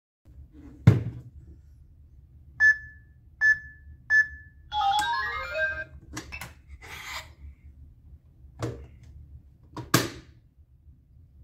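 Electronic toy ATM money box: three short identical beeps, then a brief electronic tune of stepped tones. Sharp clicks and knocks from the plastic box being handled come around them, a loud one about a second in and another near the end.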